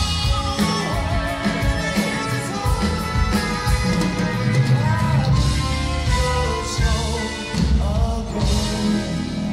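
Live progressive rock band playing, with a male singer's voice over violin, keyboards and drums.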